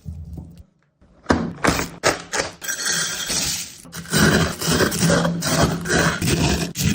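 Close-up kitchen food-preparation sounds: a quick, irregular run of taps, scrapes and rustles that starts after a short silent break about a second in.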